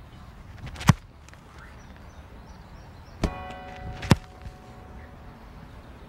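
Sharp thuds of a football being kicked off the grass: one about a second in, then two more close together around three to four seconds in. With the first of those, a steady ringing tone with many overtones starts, and it stops at the next thud.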